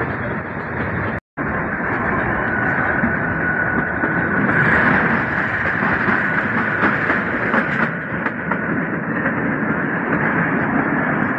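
Kalka–Shimla narrow-gauge toy train running: a steady rumble and rattle of the carriages and wheels on the rails, heard from an open window. The sound cuts out for an instant about a second in. A thin high whine sounds from about two to five seconds in, and the running noise grows louder and hissier in the middle as the train passes through a tunnel.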